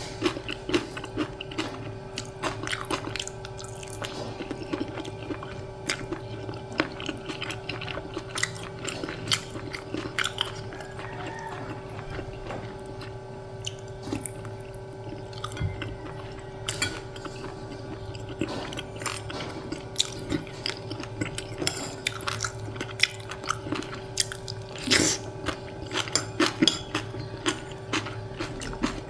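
A person eating close to the microphone: wet chewing and biting with frequent irregular clicks and smacks, over a steady low hum.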